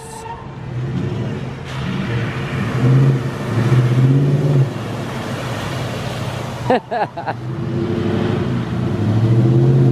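A truck's engine revving hard as it is driven through floodwater and mud. The pitch climbs and falls back twice, over a steady rushing noise.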